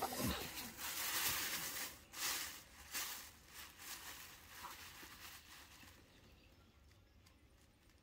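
Rustling and crinkling with a few light taps as things are handled on the rolling table, loudest in the first few seconds and fading away.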